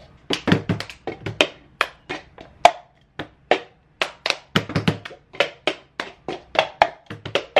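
Hand claps and cups tapped and set down on a wooden tabletop in a rhythmic cup-game routine: a quick run of sharp claps and knocks, about four a second.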